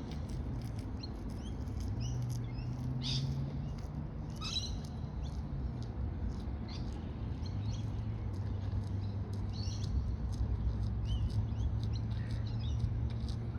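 Birds chirping, with short high calls scattered throughout, over a steady low hum.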